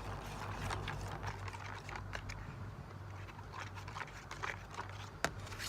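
A spoon or fork stirring slime in a container: irregular scraping and small clicks, with a sharper click about five seconds in, over a steady low hum.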